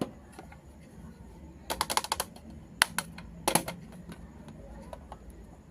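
Small hard plastic clicks and taps as miniature toy kitchen pieces are handled: a quick run of about eight clicks about two seconds in, a single click, then another short run a little later.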